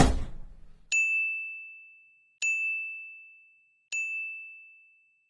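Three bright ding sound effects on the same high note, about a second and a half apart, each ringing and fading away, following a brief whoosh at the very start.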